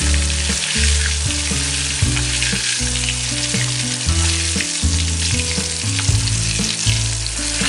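Climbing perch (koi) fish frying in hot oil in a kadai over a high gas flame, a steady sizzle, with a few clicks from a metal spatula moving the fish against the pan.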